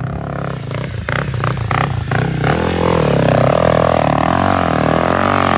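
Honda CRF dirt bike's engine revving hard, its pitch rising and falling, as the rear wheel spins and digs into soft sand. The revving grows loud about two and a half seconds in.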